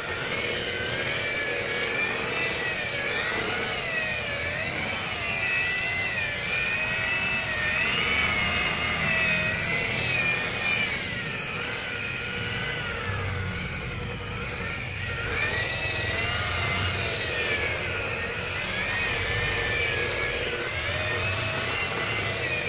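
Electric angle grinder fitted with a foam buffing pad, running continuously, its motor whine wavering up and down in pitch as the pad is pressed against a freshly painted scooter body panel to buff the cured urethane paint.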